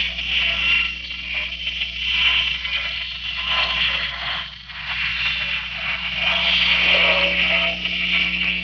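Harsh, wavering hiss and crackle over a steady low electrical hum, dipping briefly about halfway through.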